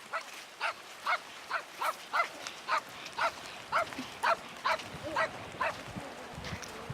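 An animal calling in a fast series of short, evenly spaced calls, about two a second.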